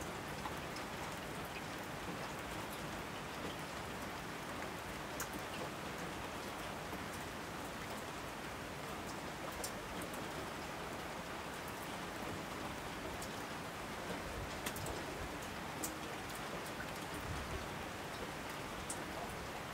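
Steady rain falling, an even hiss with occasional sharper single drops ticking through it.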